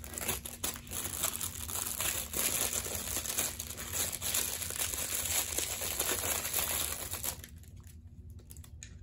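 Thin clear plastic bag crinkling as it is handled and opened to get small plastic parts out. The crackling stops about seven seconds in.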